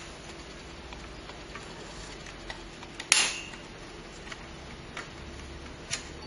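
CPU cooler being handled and fitted onto a motherboard: faint ticks of hard parts, one sharp clack about three seconds in and a lighter click near the end.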